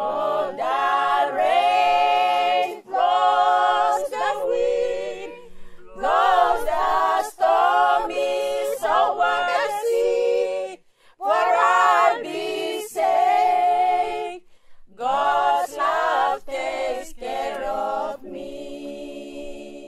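A choir singing unaccompanied, in phrases separated by short pauses, growing quieter near the end.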